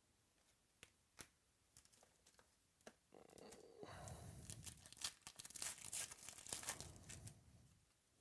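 Faint light clicks, then from about three seconds in a trading-card pack's foil wrapper is torn open and crinkled for about five seconds.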